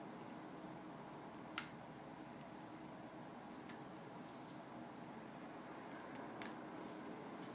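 A few short sharp clicks over a steady low hum, the loudest about one and a half seconds in, with weaker ones near the middle and near the end.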